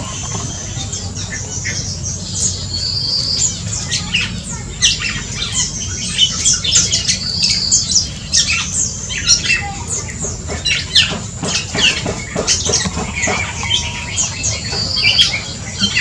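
Black-and-crimson oriole calling: a busy run of short, sharp calls and squawks, with a brief high trill recurring about three times.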